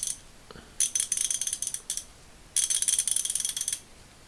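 MacWork 1/2-inch-drive 100-tooth ratchet turned in its free direction, its pawl clicking fast over the fine teeth in two bursts of about a second each, with the end of another just at the start. The click is very fine, the sign of the high 100-tooth count.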